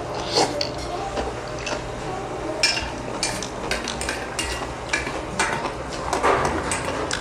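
Eating utensils clicking and scraping against dishes while eating, in a irregular series of short sharp clicks.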